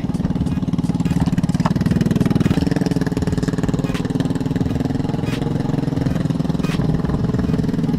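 An engine running steadily close by, with a rapid, even pulsing; its note steps up slightly about two and a half seconds in.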